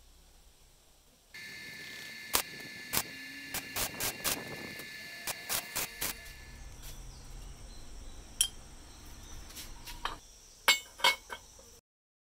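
A string of sharp metal clicks and clinks from hand tools and steel parts, over a steady high-pitched buzz for the first half. The loudest clinks come in a quick cluster near the end, and then the sound cuts off suddenly.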